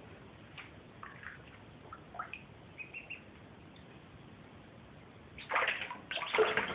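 Ducklings peeping faintly a few times, then from about five seconds in a loud burst of water splashing as the ducklings move about in a shallow tub of water.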